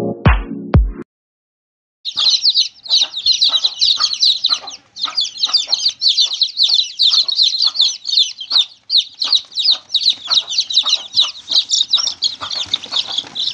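A large brood of newly hatched chicken chicks peeping nonstop in a dense chorus of short, high, overlapping peeps, starting about two seconds in. Before that, a second of electronic music with a steady beat ends.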